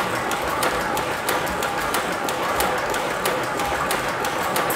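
Model steam engine running at a steady speed: even, sharp chuffs or clicks about three a second over a constant steam hiss.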